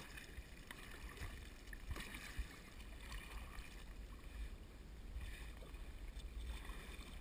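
Kayak paddle strokes dipping and splashing in river water, every second or two, over a low steady rumble.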